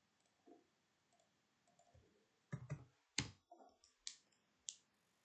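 A few sharp computer mouse clicks, about four of them between two and five seconds in, over near silence.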